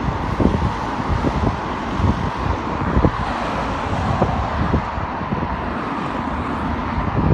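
Wind buffeting the phone's microphone in irregular low thumps, over the steady noise of road traffic passing.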